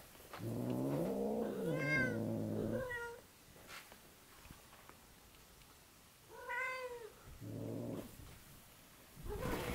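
Cats vocalising: a long, low growling yowl with two short higher meows over it, a single meow about six and a half seconds in, and another brief low growl near eight seconds. A rustle starts at the very end.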